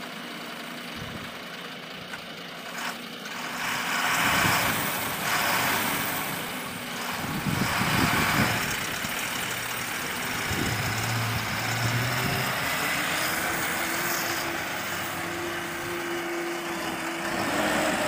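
Diesel engine of a JCB 3DX backhoe loader working, growing louder about four seconds in as the machine digs and loads soil, with surges of scraping noise and a steady whine in the later seconds.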